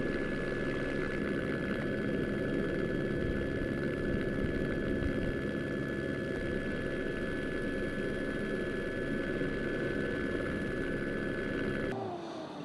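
A heavy engine running steadily under load, with a steady high whine over its drone. It stops abruptly near the end, giving way to a quieter sound that falls in pitch.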